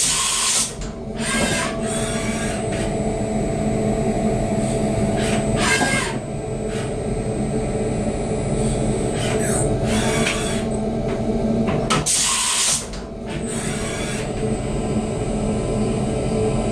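CNC vertical milling machine milling a cast part: a steady spindle and drive whine, broken by short, loud bursts of cutting noise every few seconds.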